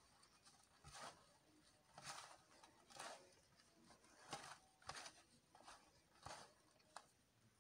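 Faint rustling and scratching of bread being rubbed and crumbled by hand into breadcrumbs on a plastic tray, in short strokes about one or two a second.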